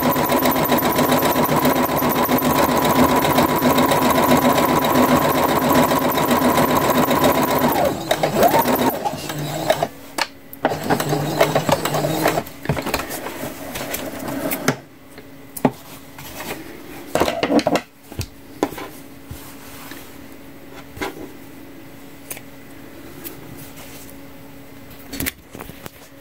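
Electric sewing machine stitching a seam at a steady speed for about eight seconds, then stopping. After that come scattered clicks and rustles as the fabric is handled at the needle.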